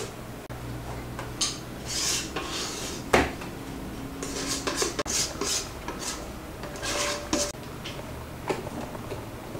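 Sponge-cake batter scraped out of a metal mixing bowl onto a parchment-lined baking tray: a run of short scraping strokes, with one sharp knock of the bowl about three seconds in.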